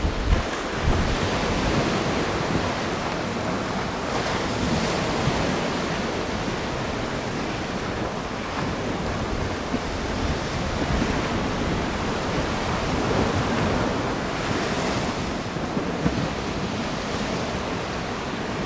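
Wind buffeting the microphone over choppy river water, a steady rushing noise with a few low thumps from gusts near the start.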